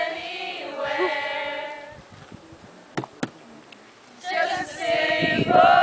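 A group of people singing together, breaking off about two seconds in, with two sharp knocks in the pause, then singing again from about four seconds in.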